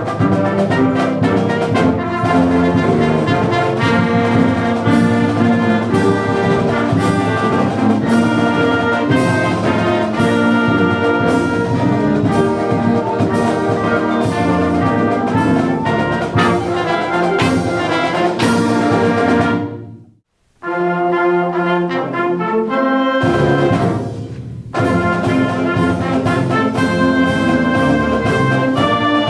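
Brass-led band or orchestral music playing. About twenty seconds in it cuts out for a moment, comes back thinner without its low end for a few seconds, then the full band returns.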